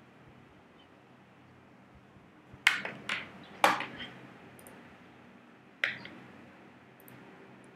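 Four sharp clicks, each with a brief ring: three within about a second near the middle, then one more about two seconds later, over a faint low hum.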